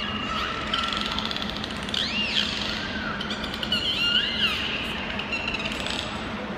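Bottlenose dolphins whistling through their blowholes in a series of high whistles. Some are held at one pitch early on, and others rise and fall in arches about two and four seconds in.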